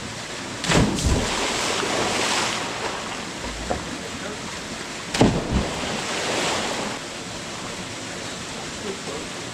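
Water splashing and churning as people swim in a river, with two louder splashes, one about a second in and one about five seconds in.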